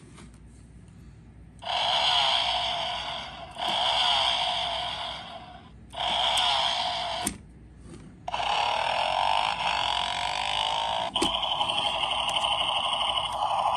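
Toy motorcycle's electronic engine-revving sound effect played through its small built-in speaker, in five bursts of one to three seconds, with short clicks between them.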